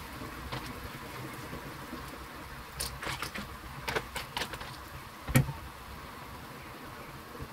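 Clam shells clattering and a spatula scraping a wok as the clams are stirred in their sauce: a run of clicks and scrapes from about three seconds in, ending in one louder knock, over a steady low hiss.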